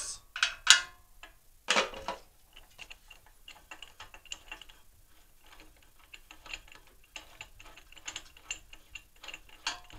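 Steel T-handle spark plug wrench loosening and turning out the spark plug of a Predator 420cc small engine. A few sharp metal knocks come in the first two seconds, then a long run of light, irregular clicks and ticks as the plug is turned.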